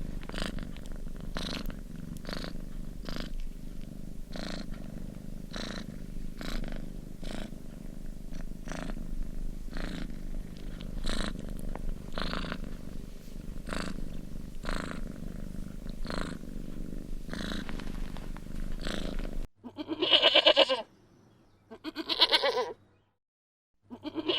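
A domestic cat purring steadily, a low rumble that swells and fades with each breath. Near the end the purring cuts off abruptly and another animal gives three loud, drawn-out bleating calls, about two seconds apart.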